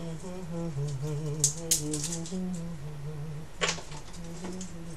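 A man humming a tune in a low voice while working garlic cloves, with a few sharp clicks and taps from the knife and cloves on the cutting board, the loudest about a second and a half in and again past three and a half seconds.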